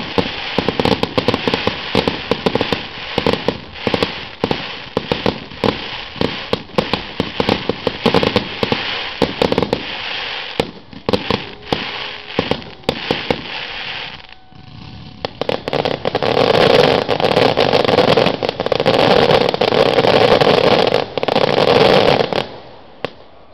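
Fireworks display: a rapid barrage of aerial shell launches and bursts, many sharp bangs in quick succession. After a brief lull a little past halfway, the reports merge into a dense, unbroken volley for several seconds, which stops shortly before the end.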